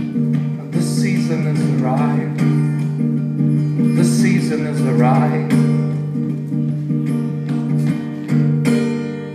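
Solo acoustic guitar strumming chords, letting them ring, in an instrumental passage at the end of a song. The strumming eases slightly toward the end and stops right at the close.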